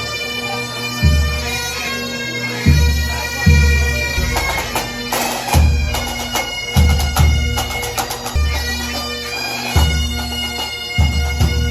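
Background music: a sustained, reedy, bagpipe-like melody over heavy bass drum hits.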